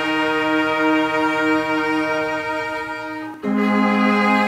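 A mixed instrumental ensemble of strings, woodwinds, brass and piano playing held chords together. About three and a half seconds in the sound briefly drops, then a fuller new chord comes in.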